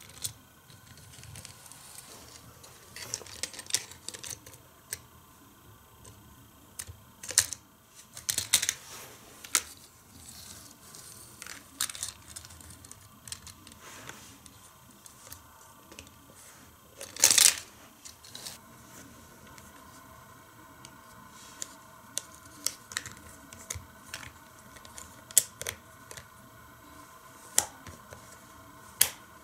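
Irregular small clicks, taps and rattles of a Hot Wheels Power Lift Garage plastic playset and a die-cast toy car being handled, with a louder clatter a little past the middle.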